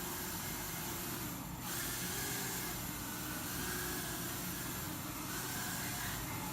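Furibee F36 micro quadcopter flying on its freshly replaced motors: a steady whirr of small motors and propellers whose pitch wavers up and down with the throttle, dipping briefly about a second and a half in.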